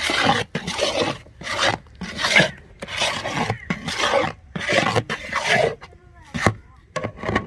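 A long-handled metal spoon scrapes and stirs thick semolina-and-flour batter around a large metal karahi, giving a rasping scrape about every half second. It pauses briefly near the end, then scrapes twice more. The batter is being worked into the sugar syrup so that no lumps remain.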